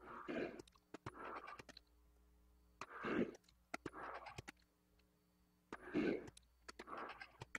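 Small import metal lathe running a thread-cutting pass under power feed, a faint steady hum. Over it, a louder rushing sound comes and goes in pairs about every three seconds, with small clicks.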